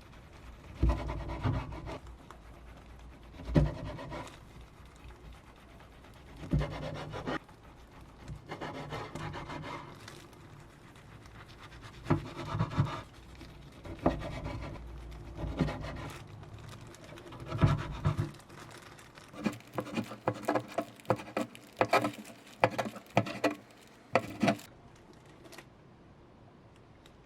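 Kitchen utensils scraping and rubbing in irregular bursts, some with a slight squeal, then a quick run of sharp knocks and taps near the end.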